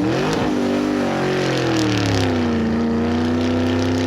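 A car engine revving, its pitch rising and falling, then settling into a steady run.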